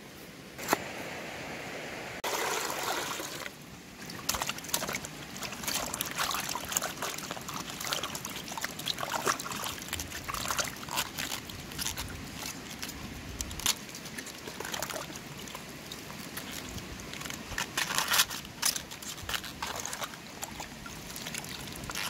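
Cabbage wedges being washed by hand in a pot of water: irregular sloshing and splashing, with water trickling and dripping back into the pot. A single sharp knock sounds just under a second in.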